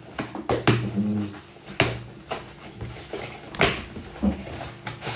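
A small cardboard parcel being cut and torn open by hand: a series of sharp rips and crackles of packing tape and cardboard flaps.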